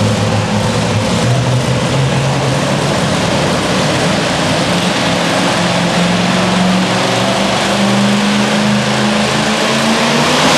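Supercharged engine of a Super Modified two-wheel-drive pulling truck running at a fast idle under light throttle, its pitch stepping up and down.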